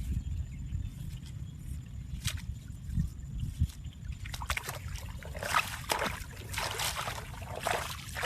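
Water splashing and sloshing in a run of irregular bursts, starting about halfway through, over a steady low rumble.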